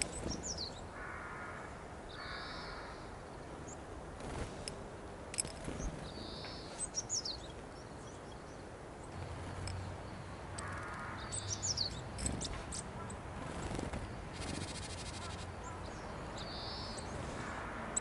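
Wild birds calling: thin high chirps that fall in pitch, and a harsh call repeated several times, with a few sharp clicks and a short rustle about three-quarters through.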